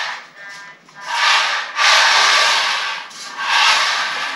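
Kobotix Real Racer FPV RC car driving in short bursts: a whirring, rasping hiss of its small electric motor and tyres that swells and fades about three times.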